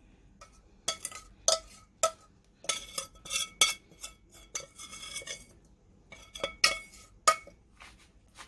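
A metal spoon scraping and clinking against stainless-steel pans while garlic-and-spice oil is scraped out of a small pan onto rice: a series of sharp clinks with a metallic ring, in one cluster from about a second in to past midway and another near the end.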